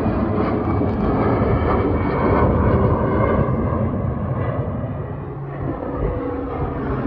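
Gulfstream G450 business jet's twin Rolls-Royce Tay turbofans, a loud steady rushing jet noise as it climbs out overhead. The noise dips about five seconds in.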